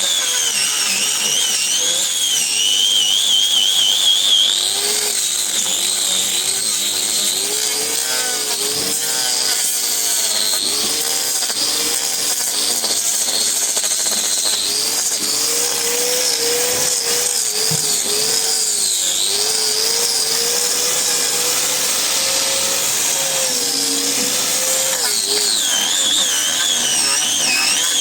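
Handheld power tool trimming a cow's hooves, running continuously with a whining motor whose pitch wavers up and down as it bites into the hoof horn.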